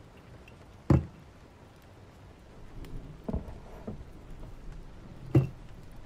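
Four short knocks of a book and stationery being handled on a desk while annotating: one about a second in, two close together past the three-second mark, and a sharp one near the end. Faint steady rain hiss underneath.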